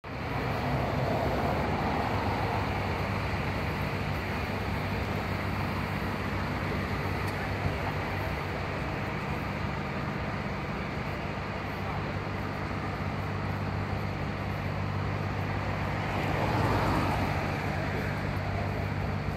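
Road traffic: cars passing on the road, louder as one goes by about a second in and again near the end, over a steady low engine hum.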